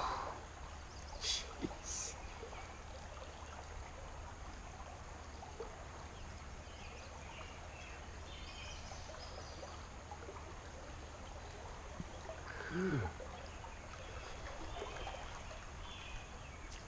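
Slow river water flowing and trickling steadily. Two short sharp sounds come in the first two seconds, and a brief low falling sound comes past the middle.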